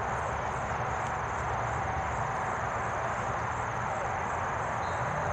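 Steady outdoor background noise at a football field: an even hiss-like haze with a low rumble, and no distinct event standing out.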